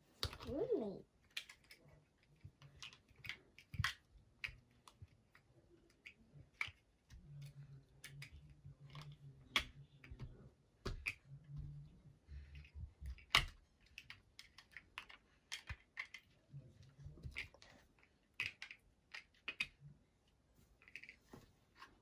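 Large plastic building blocks clicking and knocking as they are snapped together and handled, in an irregular scatter of sharp clicks. A short vocal sound comes near the start.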